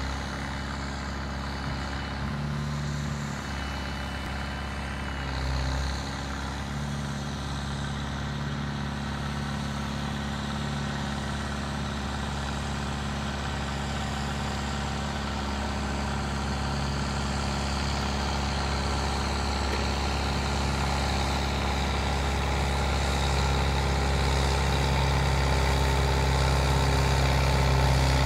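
Ford 5610 tractor's four-cylinder diesel engine running at a steady speed under load while its Claas round baler works behind it. The sound grows steadily louder as the pair draws nearer.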